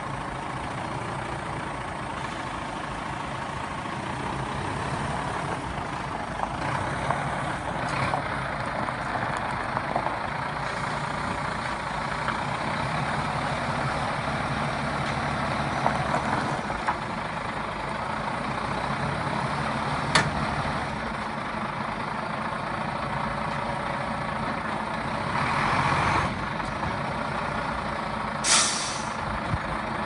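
Iveco Stralis truck's Cursor 13 straight-six diesel running steadily, with a short, sharp air-brake hiss near the end.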